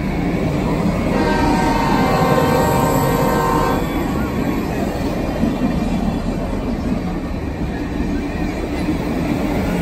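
Union Pacific streamlined passenger cars rolling past at close range, with a steady rumble and clatter of wheels on rail. About a second in, a train horn sounds one held chord for under three seconds.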